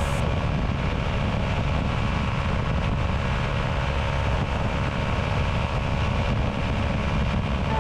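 Quad City Challenger II ultralight's engine and propeller running steadily in cruise, a constant drone with wind noise over it.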